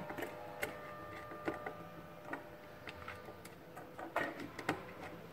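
Irregular light clicks and taps of a wire and plastic electrical components being handled while a phase wire is connected from a motor protection switch to a contactor's power contact.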